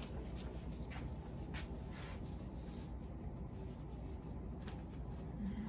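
Faint rustling and a few light clicks as a blue disposable face mask is handled and put on, over a low steady room hum.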